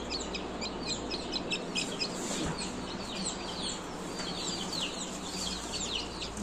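Newly hatched Kadaknath chick peeping: a rapid run of short, high-pitched, falling peeps, several a second.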